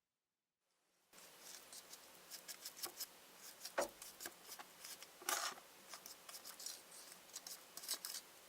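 Irregular small clicks, snips and scrapes of hands working with kitchen tools and ingredients, starting about a second in, with a few louder knocks among them.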